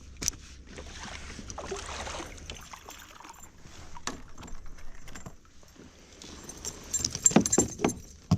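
Handling noises in a kayak: scattered clicks, rustles and light knocks, then a louder run of knocks and metallic jangling about seven seconds in, like a spinnerbait's blades and hooks rattling.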